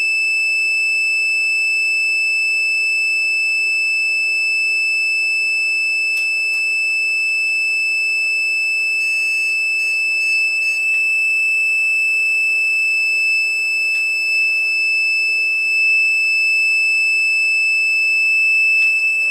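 A graphics card in a newly built PC sounds a loud, steady, high-pitched whistling tone that does not change. It is the card's warning that its two auxiliary power plugs are not connected, which the builder found to be the cause of the weird noise.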